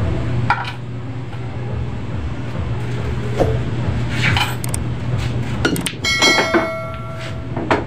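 Scattered short knocks and clinks over a steady low hum in a small room. About six seconds in, a bright bell-like chime rings for about a second and a half, the sound effect of the animated subscribe-and-bell button.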